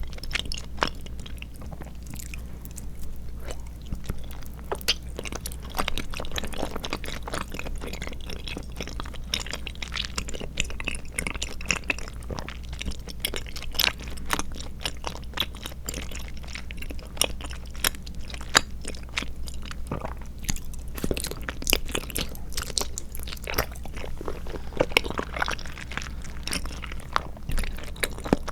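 Close-miked chewing of tapioca pearls and milk jelly: a dense, irregular run of small wet mouth clicks, over a steady low hum.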